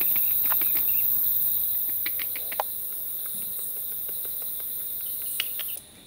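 A steady, high-pitched chorus of insects with scattered sharp ticks. The chorus drops away abruptly near the end.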